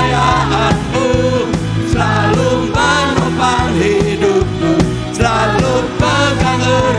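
Church worship band playing a rock-style praise song with drums, bass and a bending lead melody line.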